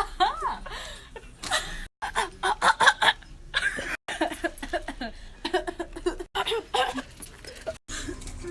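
Young women laughing and giggling in short bursts. The sound breaks off abruptly four times.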